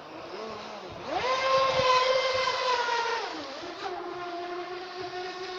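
Brushless electric motor of an RC speedboat whining: about a second in it rises sharply under throttle, holds a high pitch for about two seconds, then drops to a steady, lower whine.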